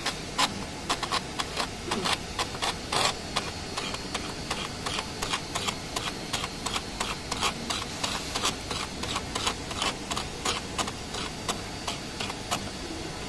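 Electro-spark (EDM) coating torch's electrode sparking against a thin stainless steel plate as the coating is deposited: an irregular run of sharp snaps, about three a second, that stops near the end.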